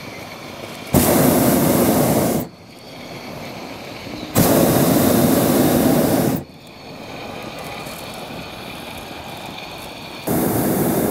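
Hot air balloon's propane burner firing in three blasts, each a loud roar of one and a half to two seconds that starts and stops abruptly, the third beginning near the end. A quieter steady hiss lies between the blasts.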